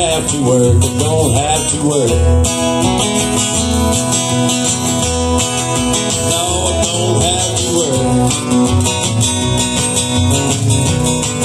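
Live acoustic country music: two acoustic guitars playing over a plucked upright bass that keeps a steady pulse of low notes.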